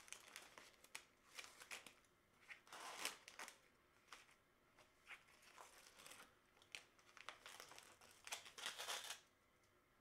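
Faint, scattered rustling and crinkling of paper envelopes and a clear plastic sleeve being handled, loudest about three seconds in and again near the end.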